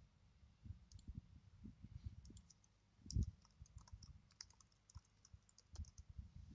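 Faint typing on a computer keyboard: a quick run of key clicks, mixed with mouse clicks and a few dull low thumps, the strongest about three seconds in.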